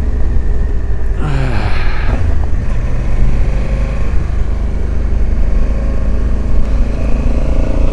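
Motorcycle engine running steadily at cruising speed, with heavy wind rumble on the bike-mounted microphone.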